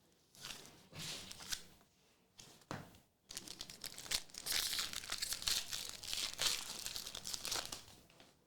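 A foil trading-card pack is torn open, with short rips and rustles in the first few seconds. Then comes a longer stretch of crinkling wrapper, about five seconds.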